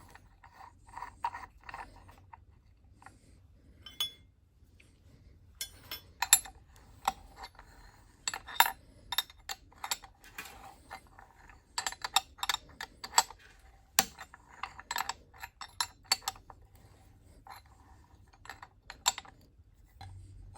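Scattered metallic clinks and taps as a valve ball is slid into a steel milling fixture and bolted in place. The taps come singly and in quick runs, each with a short ring, over a faint machine-shop hum.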